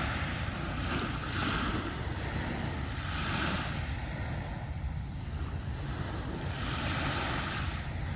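Sea waves breaking and washing up a sandy beach, the surf hiss swelling and fading several times a few seconds apart, over a steady low rumble of wind on the microphone.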